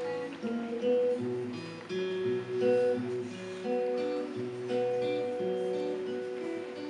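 Acoustic guitar playing a song's introduction, picked chords with notes ringing on and changing every second or so.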